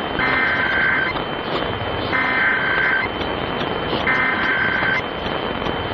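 Three bursts of Emergency Alert System SAME header data tones, the warbling two-tone digital code that opens an EAS monthly test, each burst about a second long with about a second's gap between them. They come through hissy, static-laden off-air radio reception on a Kaito KA1121 radio.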